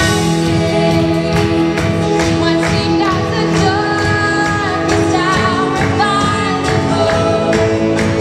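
A woman singing lead with a live Christian worship band, over a steady drum beat, bass and guitars.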